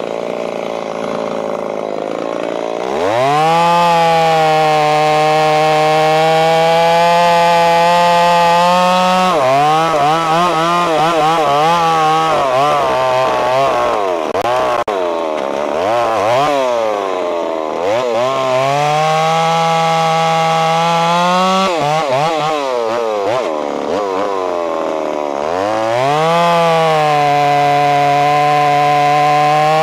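Ported Stihl 026 two-stroke chainsaw with a 28-inch bar revving up to full throttle about three seconds in and cutting into a large white oak log. Its pitch sags and wavers through the middle as the cut loads it, then holds steady and high again near the end.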